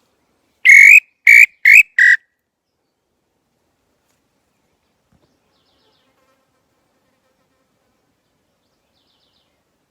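Wooden pé-roxo tinamou call (pio) of violeta wood blown in four whistled notes, each with a slight upward slide, the notes getting shorter and quicker, all in the first two seconds or so.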